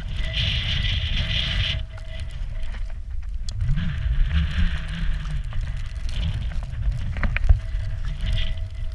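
Low, steady rumble of wind buffeting a handheld camera's microphone as it is carried while walking, with rustling and crackling on top.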